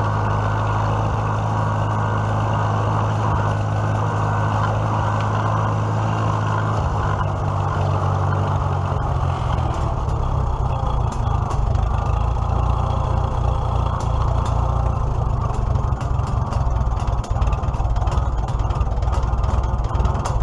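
Farmall H tractor's four-cylinder gasoline engine running steadily as the tractor is driven, on its freshly reinstalled carburetor. The engine note changes about seven seconds in, and scattered sharp clicks and rattles come in from about ten seconds on.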